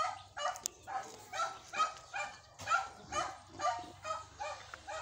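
A dog barking repeatedly, about two to three short barks a second.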